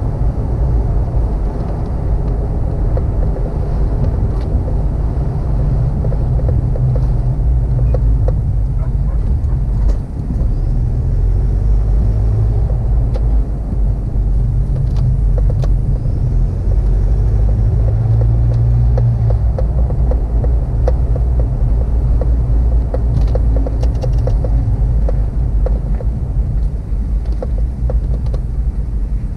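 Vehicle driving along a road, heard from inside the cabin: a steady low engine and road rumble, with scattered small clicks and rattles.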